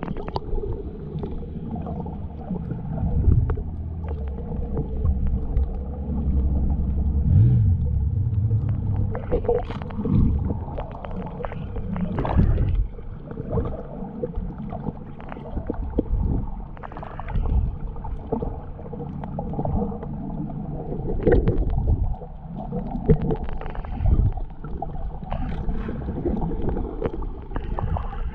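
Muffled water noise while snorkeling, heard underwater: a constant low rumble and sloshing with scattered knocks and bubbling splashes.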